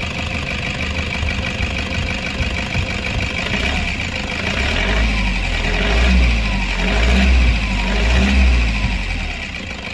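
Toyota 1KD four-cylinder turbodiesel engine running, its low rumble swelling louder for about four seconds in the middle, as if the engine is being revved.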